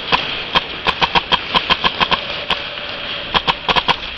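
Airsoft guns firing in an indoor arena: sharp snapping shots, singly and in quick runs, coming faster in the last second. A steady hiss runs underneath.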